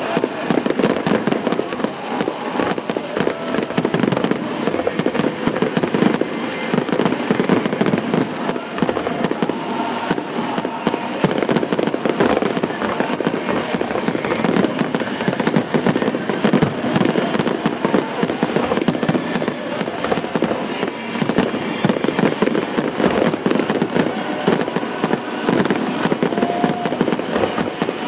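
Fireworks display in a dense barrage: aerial shells bursting and crackling one on top of another, the bangs coming too fast to separate.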